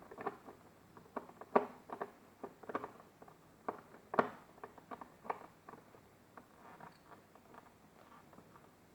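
Irregular clicks and taps of plastic dashboard trim and small self-tapping screws being worked loose and handled, busiest in the first six seconds and thinning out after.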